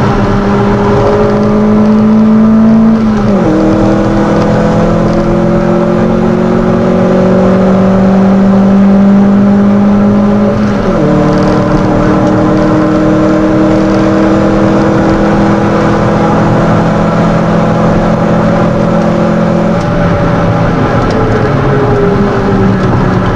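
The 1997 Mitsubishi Colt's 1.6-litre four-cylinder engine, heard from inside the cabin, pulling hard on track with road and wind noise. Its pitch climbs slowly and drops sharply at upshifts about 3 and 11 seconds in. Near the end the revs fall away, then jump back up.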